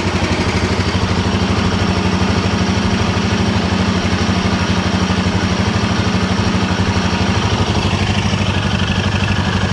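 Royal Enfield Himalayan 450's single-cylinder engine idling steadily on the stand, just after a fresh oil fill. It is run now to draw the new oil through the engine and filter. The idle note changes slightly near the end.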